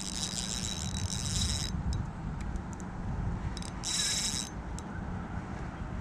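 Spinning reel's drag buzzing as a hooked fish runs and strips line: a long run for about the first second and a half, then a short one about four seconds in. A low rumble of wind and handling noise lies underneath.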